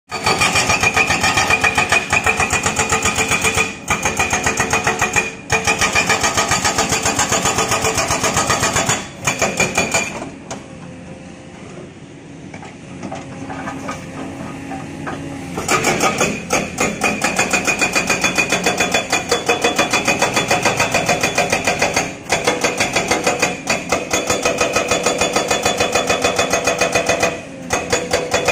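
Hydraulic breaker on an XCMG XE215C excavator pounding rock, a rapid steady hammering over the excavator's engine. It stops a few times for a moment, and for about five seconds in the middle only the engine is heard, quieter, before the hammering starts again.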